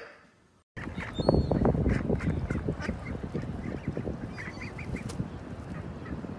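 Canada geese calling with short honks as they crowd in to take bread from a hand on the water, over a steady outdoor hiss. The sound starts after a brief gap just under a second in.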